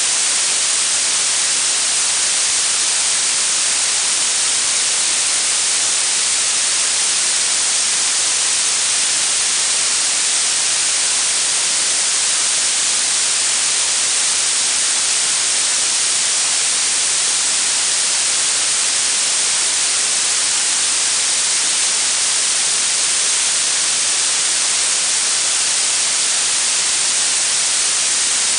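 Blue noise: a steady, even hiss weighted toward the high frequencies, like a gentle spray.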